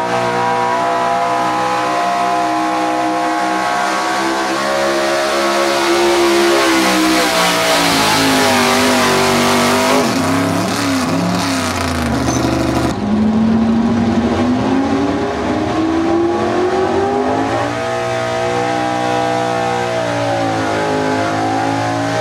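Pickup truck engine running hard under load while pulling a weight-transfer sled, its revs climbing and sagging. After a sudden break about halfway through, another truck's engine revs up again under load.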